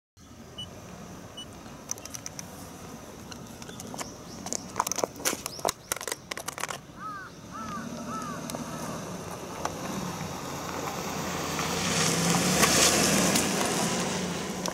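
A DENSO BHT-1400 handheld barcode terminal, thrown high, lands on concrete about five seconds in and clatters with a quick run of sharp knocks as it bounces. Later a car rolls over it: tyre noise on the pavement builds, peaks near the end and starts to fade.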